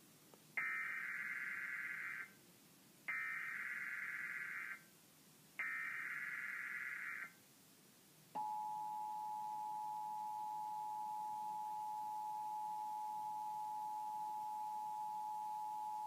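Emergency Alert System tones for a test tornado watch, played over a TV. Three bursts of SAME header data tones, each under two seconds, are followed about eight seconds in by the steady two-tone EAS attention signal, which keeps going.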